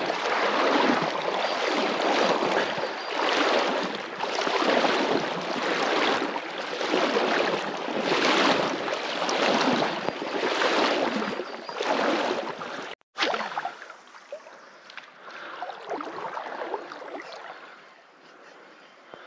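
Water sloshing in regular surges about every second and a quarter. After a sudden cut, about two-thirds of the way through, it gives way to a much quieter, uneven river-side ambience.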